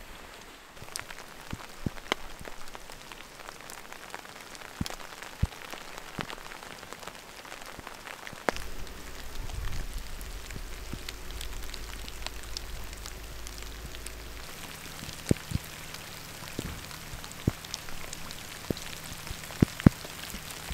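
Rain mixed with wet snow falling at night: a steady hiss with many scattered sharp ticks of individual drops landing close by.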